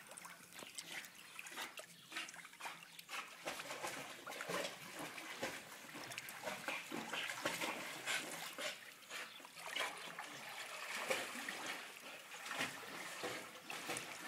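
A pit bull paddling across a swimming pool: uneven small splashes and lapping water.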